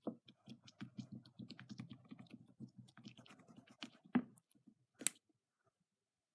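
Homemade slime being kneaded and squished by hand, making a quick irregular run of small sticky clicks and pops, with two sharper clicks about four and five seconds in before it stops.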